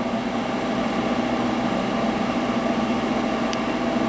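Steady hum of a CNC press brake's hydraulic pump motor running at idle, with a few fixed tones over a noisy whir. A faint short tick about three and a half seconds in.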